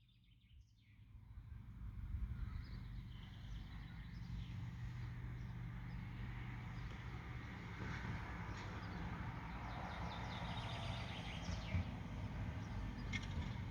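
Birds chirping and calling over a steady low rumble, fading in over the first two seconds.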